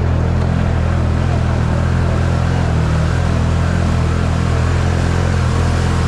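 Off-road vehicle engine running at a steady speed: a constant low drone with rough noise above it and no change in pitch.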